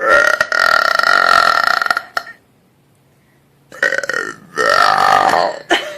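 A young woman belching loudly: one long burp of about two seconds, then after a pause two shorter burps in quick succession near the end.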